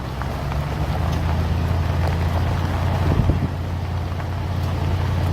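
Engine and road noise inside a moving vehicle: a steady low drone with scattered small clicks and rattles.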